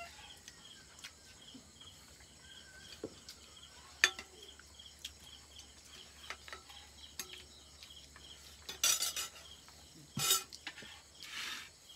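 Eating by hand from a plastic plate: fingers mixing rice and curry and scraping the plate, with scattered small clicks and a few short, louder rustling bursts near the end.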